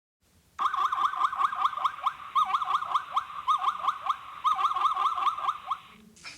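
Zebra calling: a rapid series of high, yelping barks, about four a second, in several runs that stop near the end.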